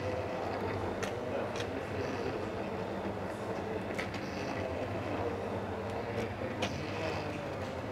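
Electric hand blender running in a saucepan of cooked carrot soup, puréeing it into a cream soup: a steady motor whir with a slightly wavering pitch and a few sharp clicks.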